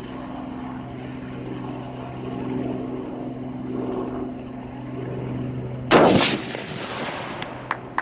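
A single .30-06 rifle shot from a Remington 770 bolt-action rifle about six seconds in, its echo dying away over about a second. A steady low hum runs underneath before the shot, and a few short sharp clicks follow near the end.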